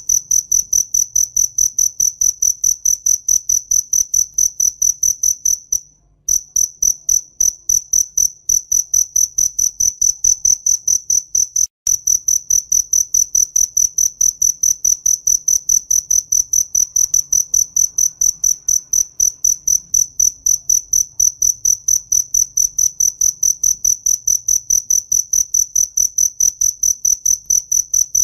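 A cricket chirping close by: one high, steady-pitched chirp repeated rapidly and evenly, with two brief pauses, the first about six seconds in.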